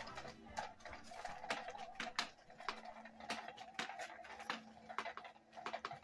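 Battery-powered cat toy running under its round fabric cover: a steady motor hum with irregular ticking clicks about twice a second.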